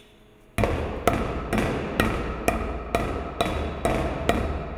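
A soft-faced mallet tapping a rubber radial seal down into its bore in a metal agitator flange: about nine even blows, roughly two a second, starting about half a second in. Each blow leaves the flange ringing briefly.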